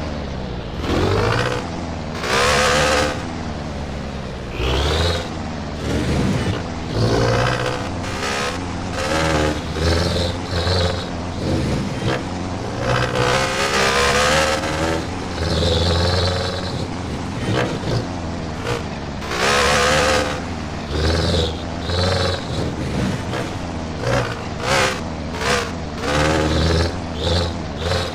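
Sarao jeepney engine running through a Lamigo muffler under a steady low idle note, revved in many short blips one after another, with a longer rev in the middle, each surge rising and falling in pitch through the muffler's tone.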